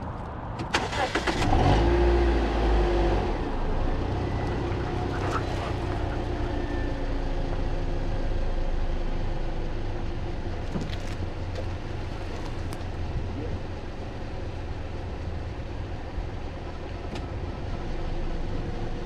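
A car engine starting about a second in, then running steadily.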